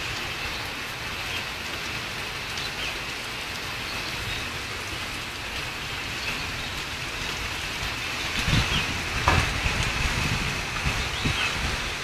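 Heavy rain falling steadily, with scattered sharp drop ticks. From about eight seconds in, irregular low thumps come through louder than the rain.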